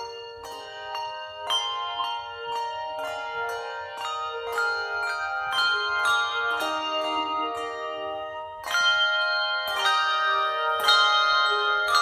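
Handbell choir playing a piece on hand-held handbells: struck bell notes and chords, two or three strikes a second, each note left to ring into the next. The playing gets louder about nine seconds in.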